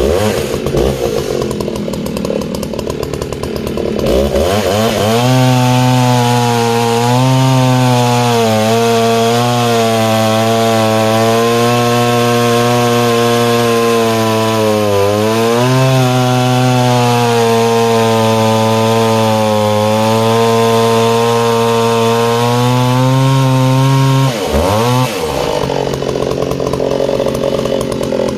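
1970s Alpina 90cc two-stroke chainsaw idling, then opened to full throttle about four seconds in and held there cutting through a log of hard, long-seasoned wood. The engine note wavers and dips once near the middle under the load, then falls back to idle near the end.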